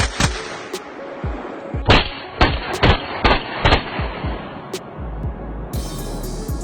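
AR-15 rifles fired in semi-automatic, a string of sharp shots that comes thickest between about two and four seconds in.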